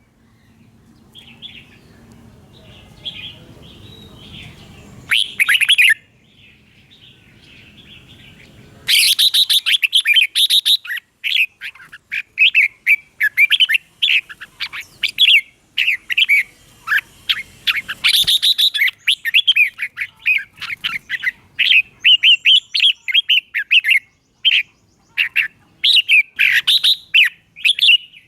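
Red-whiskered bulbuls singing in quick runs of short, clear, warbling notes. The song is sparse and fainter at first, with one loud burst about five seconds in, then dense and loud from about nine seconds in.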